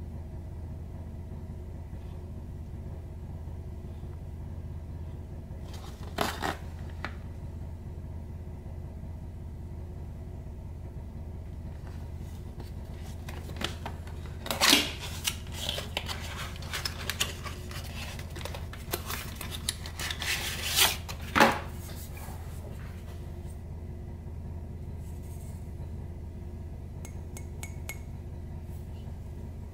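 Hands handling and opening a perfume box and taking the bottle out: a few sharp clicks about six seconds in, then a busier run of clicks, knocks and scrapes through the middle, with small ticks near the end. A steady low hum runs underneath.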